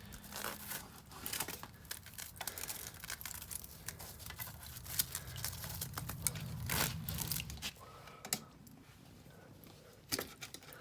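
Crinkling, rustling and clicking of hands working at the pump's wiring connections, with a low hum underneath that stops about seven and a half seconds in.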